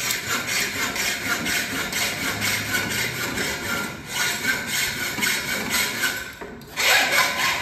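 Hacksaw cutting through a metal sliding-door track in steady back-and-forth strokes. The strokes grow louder and more ringing near the end.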